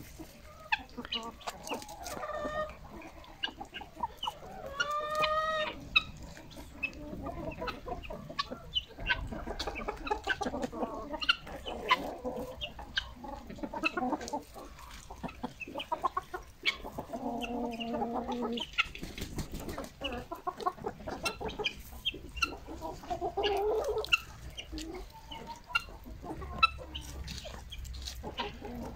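A flock of domestic chickens clucking and calling, with a few longer drawn-out calls among the short clucks and scattered sharp clicks.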